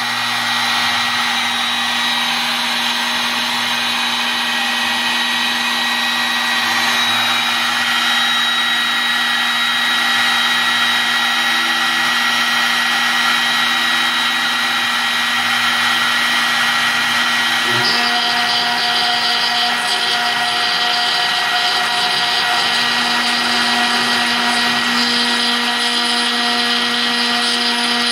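CNC router spindle engraving a picture into polished black granite: a steady high whine with a hiss from the bit working the stone. The tone shifts slightly about eighteen seconds in.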